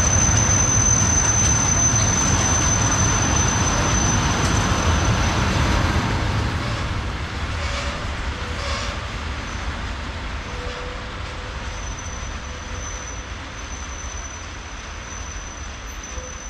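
Freight train of tank wagons rolling past, a steady rumble and clatter of wheels on rail with a thin high whine over it. It fades steadily from about six seconds in as the last wagons draw away.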